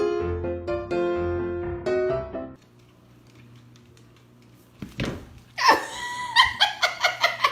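Piano music that stops about two and a half seconds in, leaving a low hum. From about five and a half seconds a pet lets out a quick series of high-pitched cries, several a second.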